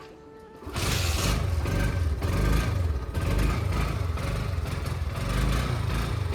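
Bajaj Pulsar AS 150's single-cylinder engine catching on the kick starter less than a second in, then running steadily; the bike has been very hard to start.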